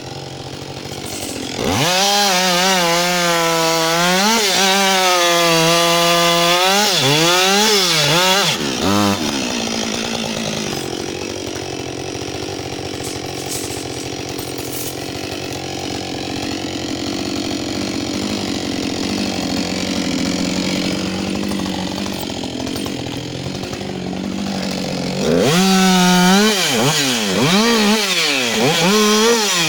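Husqvarna 560XP two-stroke chainsaw at full throttle cutting into a log for about seven seconds, its pitch dipping and recovering as the chain bites, then dropping back to a steadier low throttle for some fifteen seconds. It opens up into a second cut near the end.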